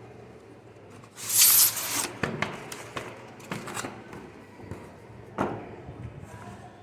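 Keyboard packaging being handled: a short loud rustle about a second in, then several separate knocks and clicks as the box and keyboard are moved about.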